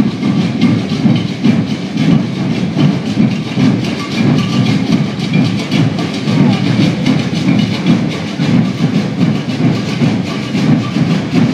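Maracatu percussion band drumming a dense, steady rhythm, the large bass drums (alfaias) strongest, with a hissy layer of snares and shakers above.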